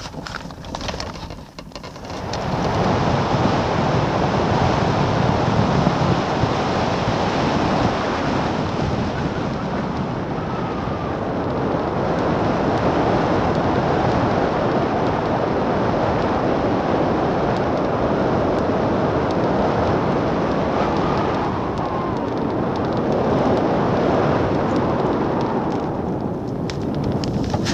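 Rushing wind noise on the microphone of a camera mounted on a hang glider in flight, steady and heavy. It builds about two seconds in and dies away near the end as the glider slows for landing.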